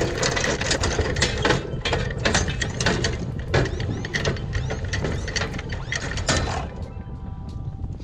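Anchor chain rattling and clanking link by link over the bow roller as the anchor is hauled aboard. The clanking stops about six and a half seconds in, as the anchor comes up to the bow.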